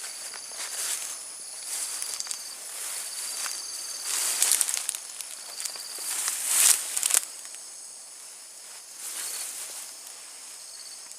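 Insects trilling with several steady high tones and short repeated chirps, under rustling and trampling through dry undergrowth that swells twice, loudest about two-thirds of the way in.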